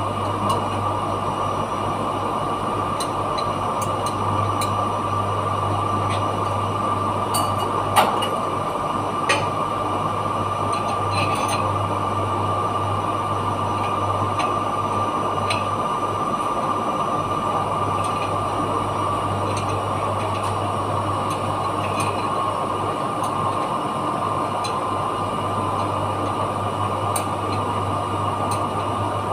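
Steady drone of running machinery, a low hum with a constant high whine over it. A few sharp metallic clicks of a wrench on metal stand out, the loudest about eight seconds in, with others near the start and about nine seconds in.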